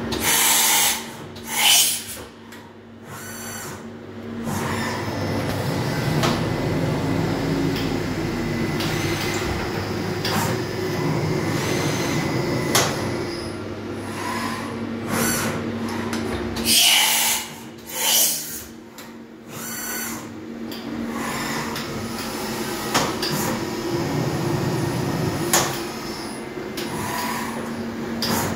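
AXA VARIO 2 traveling column CNC machining center running through automatic tool changes: a steady machine hum with clunks and clicks, and two pairs of short, loud hissing bursts, about a second in and again about seventeen seconds in, as tools are released and clamped in the spindle.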